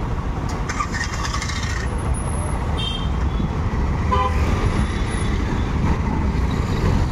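Street traffic heard from a moving two-wheeler: a steady low rumble of engines and road noise. Over it, vehicle horns sound: one lasting about a second, starting soon after the beginning, then short toots near three and four seconds in.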